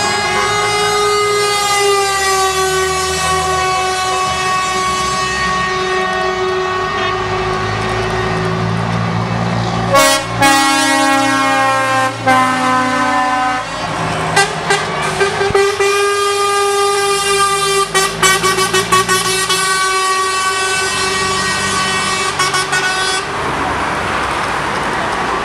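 Air horns of passing trucks sounding: one long held horn note, then several horns together in a chord about ten seconds in, followed by a string of short toots and another long blast that stops near the end, over the rumble of diesel engines.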